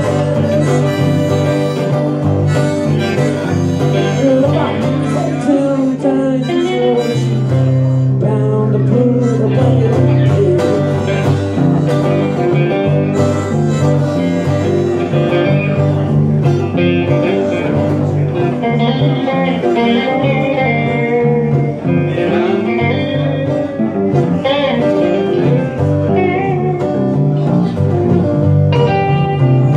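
A live blues band playing: harmonica played into a microphone over electric bass and strummed acoustic guitar.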